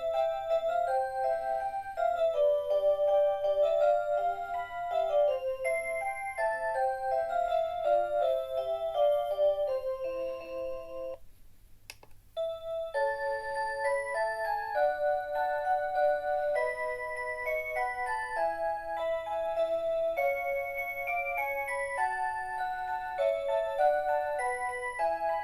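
Rhythm 'Aria Cantabile' melody alarm clock playing a Christmas tune in simple electronic chime tones. One tune ends about eleven seconds in. After a short pause and a click, the next tune begins.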